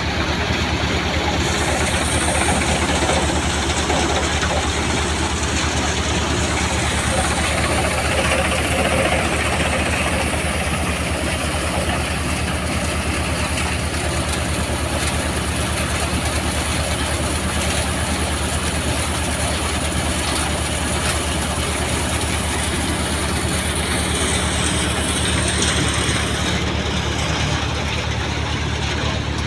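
Multicrop thresher running steadily, driven by a Massey Ferguson 245 tractor's diesel engine, while dried guar plants are fed into it; an even engine hum under a dense threshing rush, with no let-up.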